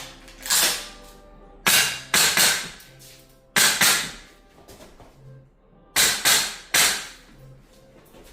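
Gas-powered airsoft rifle firing double taps: about nine sharp pops in quick pairs, with short pauses between the pairs.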